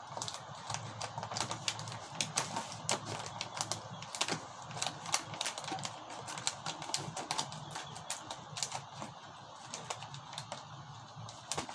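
Plastic snack packaging crinkling and rustling as it is handled and opened by hand, with many irregular sharp clicks and crackles.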